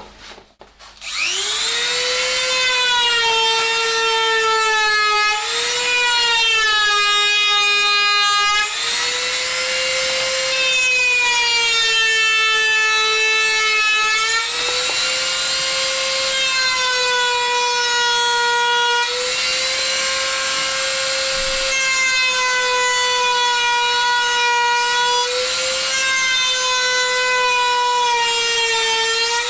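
Electric drill mill starting about a second in and running as a steady high whine, its pitch sagging briefly and recovering every few seconds as it takes load cutting the threading off a plastic bottle neck.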